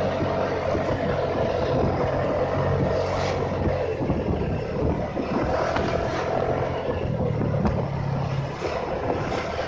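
Motorcycle engine running steadily at road speed, its note shifting slightly as the throttle changes, with wind rushing over the microphone.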